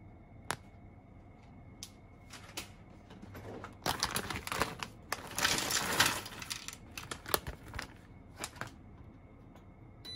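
Dried baby sardines (gomame) poured from a plastic bag into a dry frying pan: the bag crinkling and the small stiff fish clattering onto the pan. The clatter is densest about four to six seconds in, with scattered clicks before and after.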